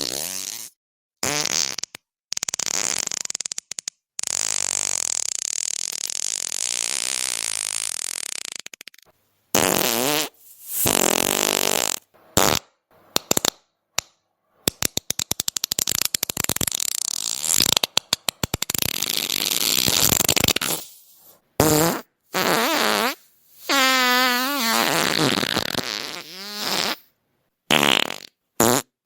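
A string of fart sounds, one after another, separated by abrupt silent gaps. Some are long and drawn out, one is a rapid sputtering run of short pops, and one wavers in pitch.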